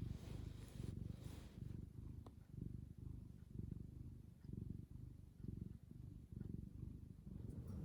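Domestic cat snoring softly: a low, rattling sound that swells and fades about once a second with each breath.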